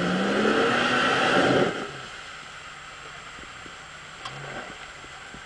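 Jeep engine revving, its pitch rising under load as it climbs a rock ledge. About two seconds in the revs drop away suddenly to a quiet low idle.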